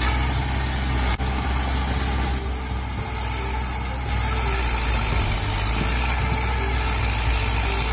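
Tractor engine sound running steadily at a low pitch, like an engine at idle, with a brief click and dip about a second in.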